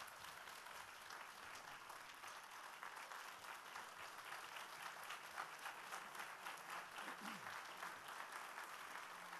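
Audience applauding steadily: many people clapping at once, a standing ovation at the end of a speech.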